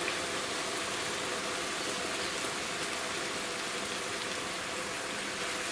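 Mushrooms and mixed vegetables sizzling steadily in a hot wok.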